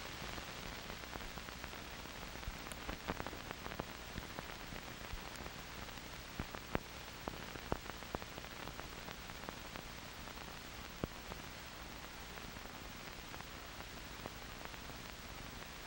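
Steady hiss with scattered clicks and pops, the surface noise of an old 1940s film soundtrack with no music or voice on it. A sharp click right at the start.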